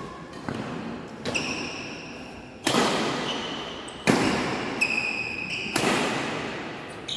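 Badminton rally: rackets striking the shuttlecock in sharp, echoing hits about a second apart, with sneakers squeaking on the court floor between shots.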